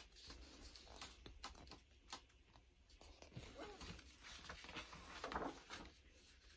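Near silence with faint rustles and small taps from a hardback picture book being held and handled, a little busier in the second half.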